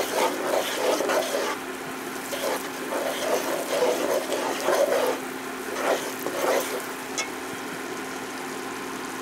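Spoon stirring and scraping a thick flour-and-butter roux with vegetables around a nonstick frying pan, in irregular strokes that die down about seven seconds in. A faint steady hum runs underneath.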